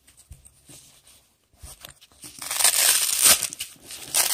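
Hook-and-loop (Velcro) fastener on a neoprene holster being pulled apart: a long, loud rip starting a bit over two seconds in, after soft rustling of the fabric being handled.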